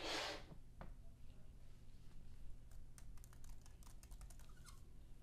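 Typing on the scissor-switch keyboard of a 15-inch M2 MacBook Air. A short swish right at the start, then a quick run of faint key clicks over about two seconds in the second half.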